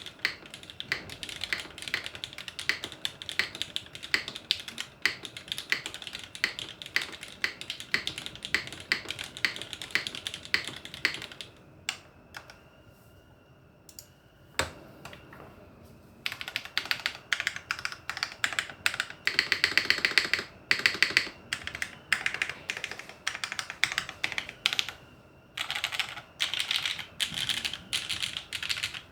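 Typing on a custom TKL mechanical keyboard (Tiger, aluminium top-mount plate, Cherry vintage black linear switches, GMK keycaps): a steady stream of key clicks. After a pause of a few seconds, the stabilized long keys are pressed rapidly over and over in bursts, as a stabilizer test.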